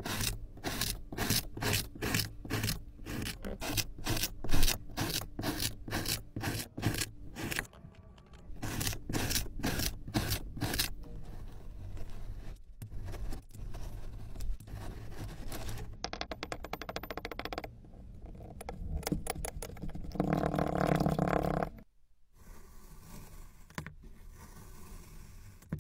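Kinetic sand being cut and scraped: a blade slices through it again and again, about three cuts a second, for the first several seconds. Later come a spiked roller pressed across the sand and a knife cutting through a block of it.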